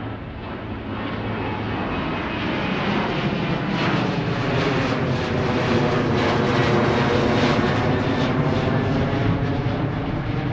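Jet engines of a Delta Boeing 737 airliner flying low overhead. The steady engine noise swells to its loudest about six or seven seconds in, then starts to fade as the plane moves away. Its tone slowly sweeps as the plane passes.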